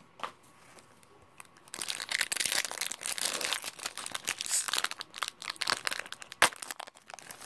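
Foil Pokémon TCG booster pack wrapper crinkling and tearing as it is pulled open by hand: a dense run of crackles starting a little under two seconds in, with one sharp crack near the end.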